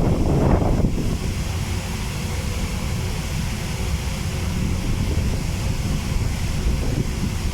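Strong wind buffeting the microphone in a steady low rumble, with a louder gust in the first second.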